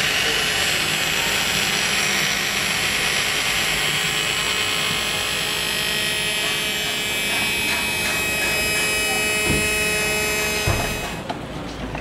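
Steady whining hum of a machine running, with many fixed tones over an even noise, and two light knocks about nine and a half and ten and a half seconds in. The hum drops away shortly before the end.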